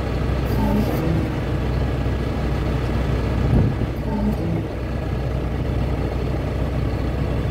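A farm machine's engine running steadily at idle, with one brief louder knock about three and a half seconds in.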